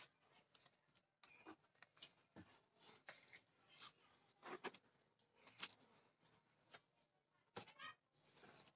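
Faint handling noises of a cardboard box and its plastic-wrapped contents: scattered soft scrapes, taps and rustles, with a short rustle of plastic near the end.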